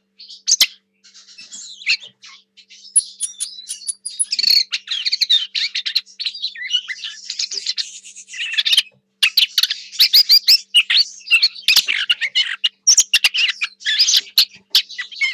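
A lesser whitethroat singing a long, scratchy warble of quick, varied notes, with a short run of very high thin notes about three seconds in.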